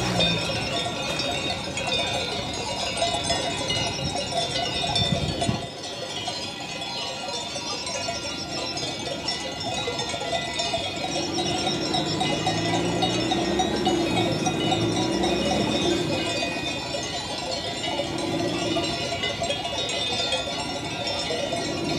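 Bells on a grazing flock of sheep ringing continuously, with sheep bleating on and off, most in the middle stretch.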